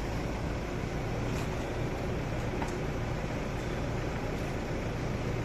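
Steady low background rumble and hiss with a low hum, with a couple of faint clicks.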